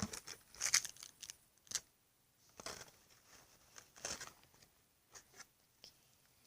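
Homemade crunchy slime with small white beads being squeezed and pulled by hand, making irregular crackling, popping clicks in short bursts.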